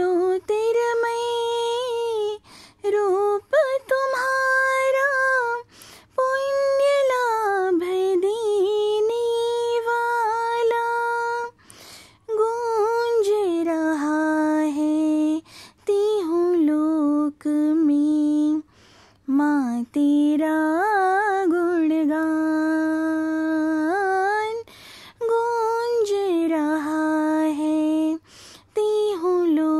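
A woman singing a Hindi devotional bhajan solo, in long held, gliding phrases with short breaks between them.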